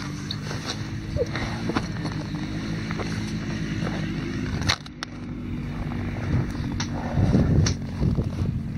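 Footsteps crunching on snow-covered lake ice, with scattered clicks, over a steady engine hum. The hum breaks off briefly about five seconds in.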